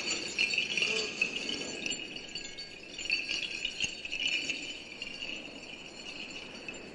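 Shaken rattle with a jingling, chime-like shimmer as eerie percussion in the film's score, a dense run of fast ticks that thins out and fades toward the end.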